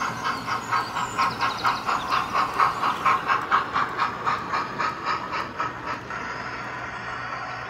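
OO gauge model steam locomotive and train running along the track, giving a rhythmic beat of about three a second that dies away about six seconds in.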